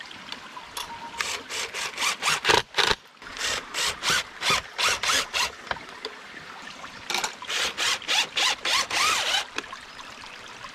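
Cordless impact driver driving exterior screws through metal plumber's strap into wood, in two bouts of quick pulsing rattles: one from about a second in to near the middle, the other in the second half.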